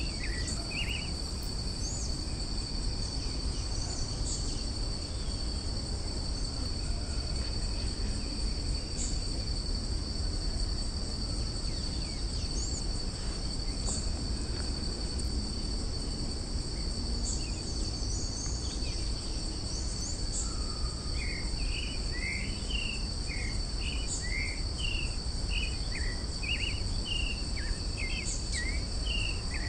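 Creamy-bellied thrush (sabiá-poca) singing: a few short notes at the start, then from about two-thirds of the way in a quick run of short notes, about two a second. Under it runs a steady, high-pitched insect drone.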